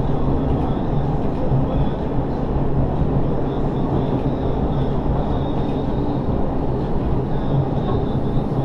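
Bavarian Zugspitze Railway electric railcar running steadily along the track, heard from inside its driver's cab: a continuous low rumble of wheels on rail with a steady low hum.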